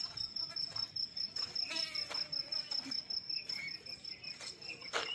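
Field crickets chirping in a fast, even pulsing trill that keeps on steadily.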